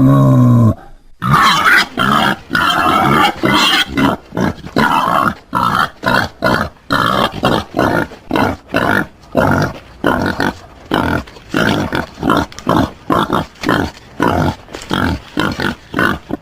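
Wild boar grunting in a rapid run of short, rough grunts and squeals, about two or three a second. It follows the tail of a drawn-out pitched squeal that ends in the first second.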